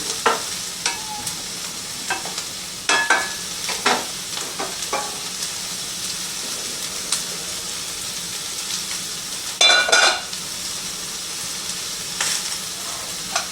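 Chicken frying in a pan with a steady sizzle, with a few knocks of a utensil or pan about three to five seconds in and a louder clatter about ten seconds in.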